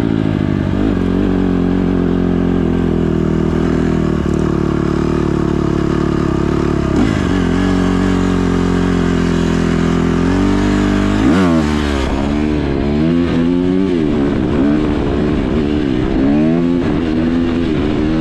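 Dirt bike engine running as it rides a forest trail, at a steady pitch for about the first ten seconds, then revving up and down again and again over the rest.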